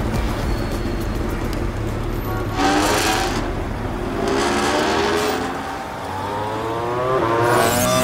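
Sport motorcycle engine revving up in three rising pulls over a low engine rumble, the last climbing steadily toward the end.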